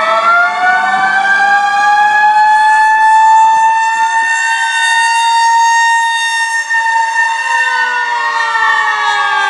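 Several fire apparatus sirens wailing at once, overlapping. Their pitches slowly rise and fall: one climbs and then holds high while another sinks lower.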